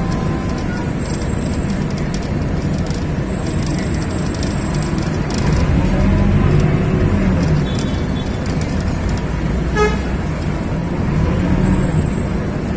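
Road traffic heard from inside a moving vehicle: a steady rumble of engine and tyres, with an engine note rising and falling around the middle and one short horn toot about ten seconds in.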